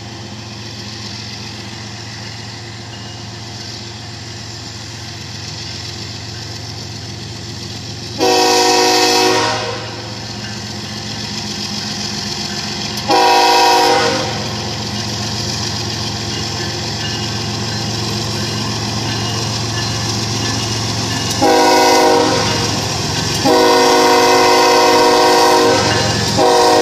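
Canadian Pacific GE ES44AC diesel locomotive approaching with its engine running, growing louder as it nears. Its air horn sounds the long, long, short, long grade-crossing signal, and another blast starts just at the end.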